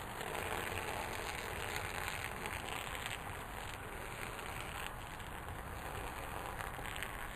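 A steady stream of liquid splashing onto a paper photo print lying on grass, a continuous crackly hiss.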